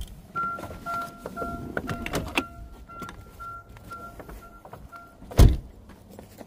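2009 Chevy Cobalt's warning chime beeping about twice a second while the driver's door stands open, with a few light clicks, then the door shutting with a loud thump about five seconds in.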